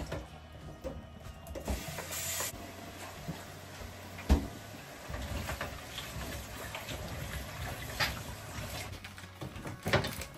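Kitchen clatter during cooking: scattered knocks and clinks of utensils and food going into a pot, the loudest knock about four seconds in, with a short hiss about two seconds in.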